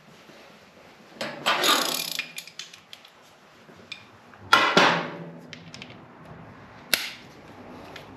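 Metal hand tools being handled and set down: two loud clattering rattles, about a second in and about four and a half seconds in, then a single sharp click near the end.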